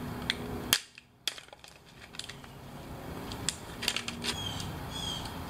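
Sharp clicks and knocks of a hoverboard lithium-ion battery pack being handled and set against concrete with gloved hands, the loudest a little under a second in.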